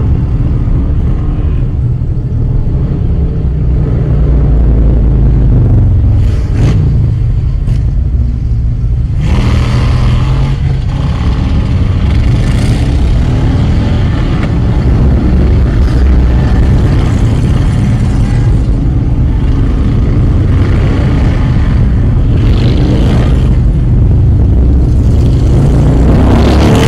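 Cruiser motorcycles' engines rumbling and revving a few metres ahead, heard from inside a following car over its own engine and road rumble, growing louder about a third of the way in and again near the end.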